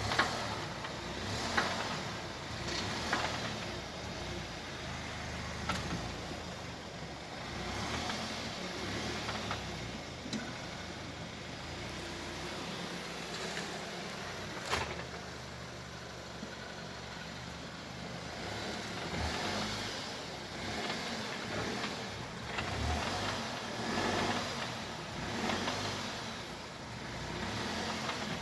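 Short knocks from the front end of a Skoda Kodiaq as the car body is rocked, repeating every one to two seconds over a steady low rumble. This is the front knock on rocking that is being tracked down.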